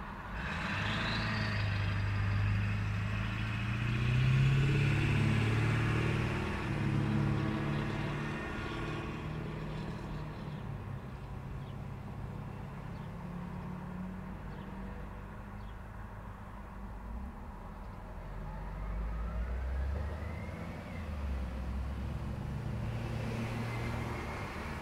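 Road traffic at an intersection: cars and trucks accelerating and passing, with an engine note climbing a few seconds in. It eases off to a lower hum in the middle, and a deeper rumble builds again near the end.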